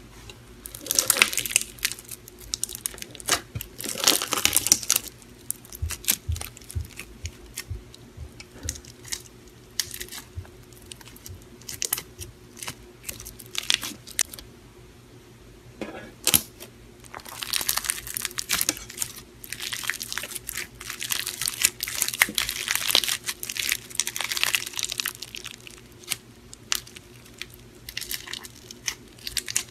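Clear blue bubbly slime being squished and stretched by hand, giving dense crackling and popping in bursts, strongest in the first few seconds and again through the second half.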